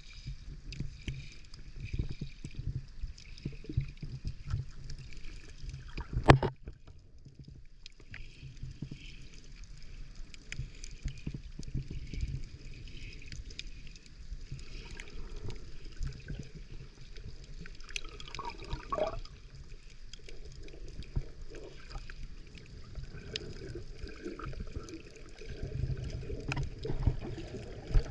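Muffled underwater sound picked up by a submerged camera: low rumbling water movement with scattered clicks, a sharp knock about six seconds in, and a short bubbly gurgle a little past halfway.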